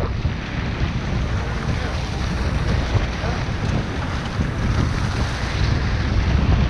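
Wind buffeting the microphone over the steady wash of sea water churning along a boat's hull.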